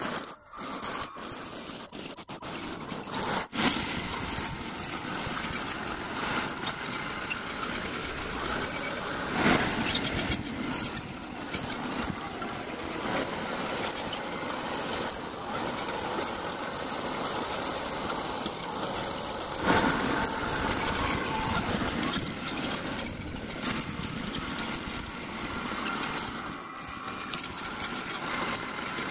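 Homemade remote-controlled hydraulic bulldozer running, with a steady high-pitched whine from its motors and hydraulic pump and scattered squeaks and clicks from its tracks and moving parts as it works dirt. The sound drops out briefly a few times in the first few seconds, then runs on evenly.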